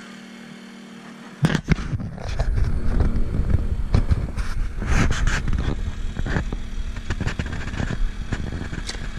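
Steady low hum of the boat's motor or generator, then about a second and a half in, loud knocking, bumping and rumbling close to the microphone that keeps going, as an arrowed fish is hauled in on the bowfishing line.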